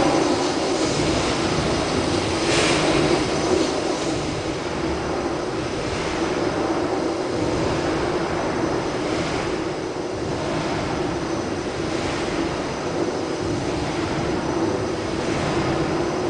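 Steam beam engine (No. 2, a Woolf compound rotative beam engine) running steadily: a constant mechanical hum with a louder, sharper rush of sound about every three seconds in time with its slow stroke.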